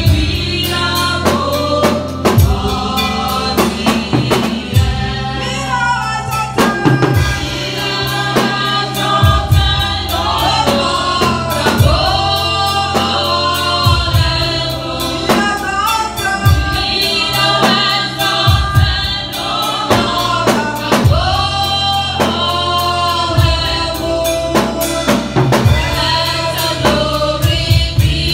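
Gospel worship music: several voices singing together over a steady drum-kit beat and a deep bass line.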